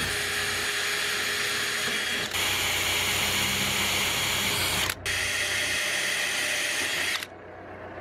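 DeWalt cordless drill running in three long, steady runs with a whine, drilling pilot holes through the roof vent's flange into the van's metal roof; it stops about seven seconds in.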